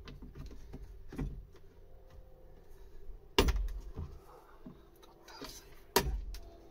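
Hard plastic snaps and knocks as a Ford Mondeo Mk5's door speaker is pried out of the inner door panel, with two sharp cracks about three and a half seconds in and near the end as its mounting tabs let go. One tab breaks.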